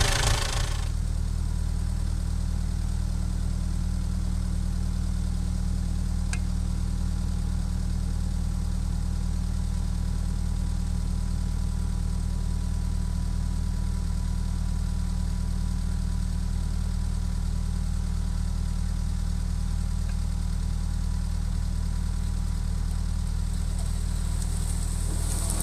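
International Harvester 784 tractor's diesel engine running at a steady speed while its hydraulics tip a trailer. The note holds level throughout, with one faint click about six seconds in.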